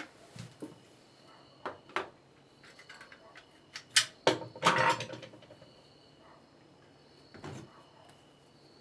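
Scattered knocks and clunks of objects being handled, with a longer rattling clatter about four seconds in, then a single knock near the end.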